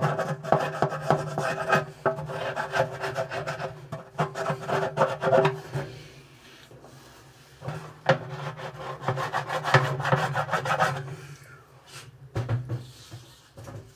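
Scraping caked grime, the residue of years of washes, off a part of an automatic washing machine: rapid rasping strokes in two long runs with a pause of about two seconds between them.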